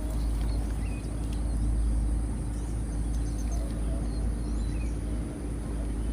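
Outdoor lakeside ambience: a steady low rumble with a constant thin high whine and a few faint bird chirps.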